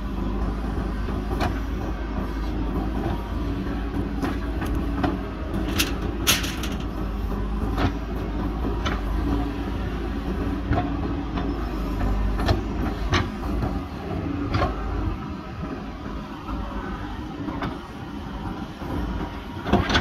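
JCB backhoe loader's diesel engine running steadily under digging load while the backhoe bucket works soil, with scattered short knocks and clanks from the bucket and arm. The low engine note eases off in the last few seconds.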